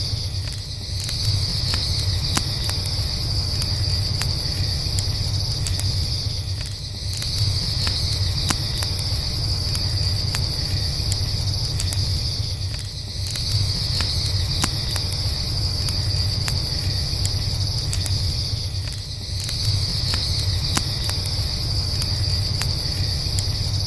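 Campfire crackling with scattered small pops over a steady low rumble, while crickets chirr in a continuous high band that dips briefly about every six seconds.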